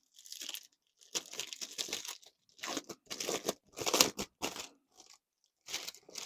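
Packaging on a cardboard gift box being torn open: irregular bursts of tearing and crinkling, about five spurts with short pauses between them.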